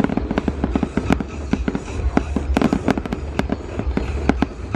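Aerial fireworks display: a rapid, irregular string of sharp bangs and crackles from bursting shells, several a second, over a steady low rumble.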